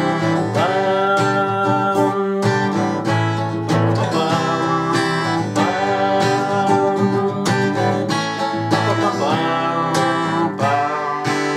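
Acoustic guitar played in a steady strummed rhythm, with a wordless sung melody over it.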